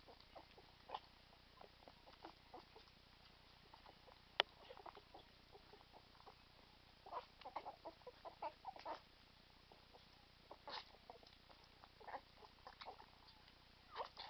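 Faint, scattered short squeaks and snuffling from young English bull terrier puppies eating wet kibble. The sounds bunch up a little past the middle, with one sharp click about four seconds in.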